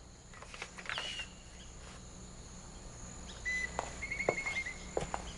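Birds chirping, with a quick trilled run of notes past the middle and scattered short chirps, over a steady high-pitched insect drone.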